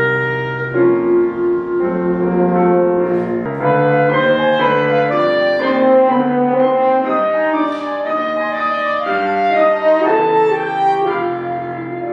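A French horn, a clarinet and a keyboard playing a slow classical piece together, with held notes moving every half-second or so.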